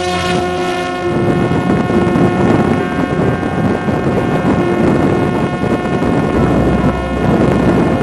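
Parrot Disco fixed-wing drone's electric pusher-propeller motor running at a steady high-pitched whine while the drone climbs after take-off, heard from the onboard camera. From about a second in, wind rushes over the microphone.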